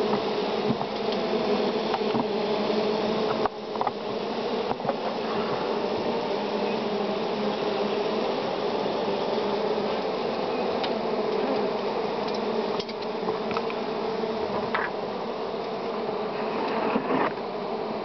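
Many honeybees buzzing together: a steady hum of wingbeats with several pitches layered.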